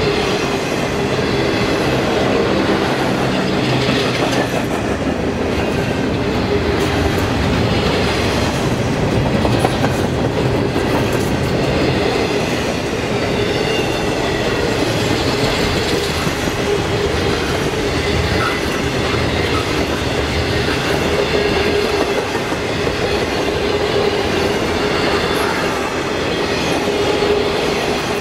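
Double-stack intermodal freight train's well cars rolling past steadily, the steel wheels running continuously over the rails.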